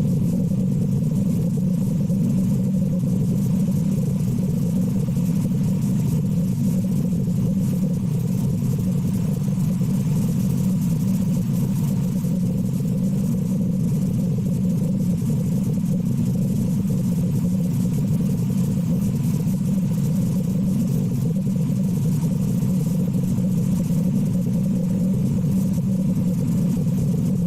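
A steady, unbroken low rumble like a motor running, with no separate breaths or blows standing out.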